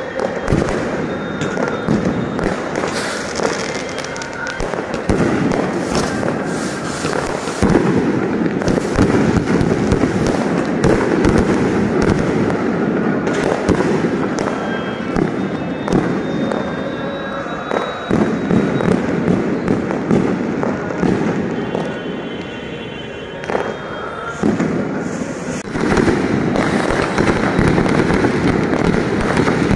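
Fireworks display: a dense, continuous run of crackling, popping and bursting from many rockets and shells going off at once. It swells and eases in waves and builds up again near the end.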